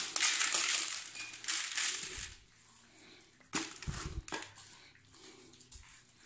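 Wet, scaly vobla being shifted and packed by hand in a plastic bucket for salting: the fish rustle and slide against each other and the bucket wall for a couple of seconds, with a brief bump and dull knock about three and a half seconds in.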